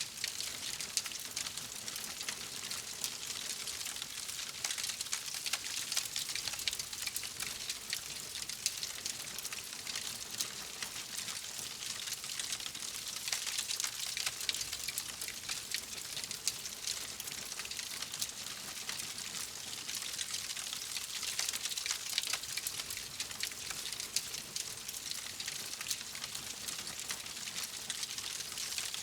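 Wood fire in a fireplace crackling steadily, with a dense run of small pops and snaps over a soft hiss.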